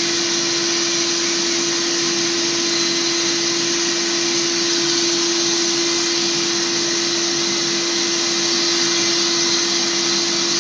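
Kärcher washing (spray-extraction) vacuum cleaner running steadily, its nozzle drawn over sofa upholstery to extract cleaning solution from a urine stain. An even rush of air with a constant hum underneath.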